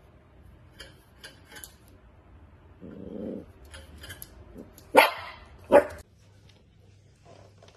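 Dachshund puppy giving a short low growl, then two sharp, loud barks a little under a second apart.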